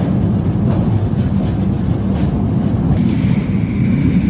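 Passenger train running, a steady low rumble of wheels on the rails with faint clicks; a faint high whine joins about three seconds in.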